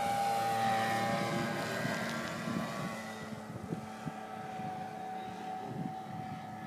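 Radio-controlled model Sopwith biplane in flight, its motor and propeller giving a steady high-pitched drone.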